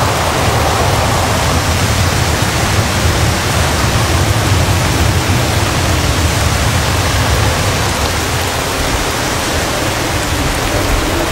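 Heavy rain and strong wind in a storm, thrashing coconut palms: a loud, steady rushing noise with a deep rumble underneath.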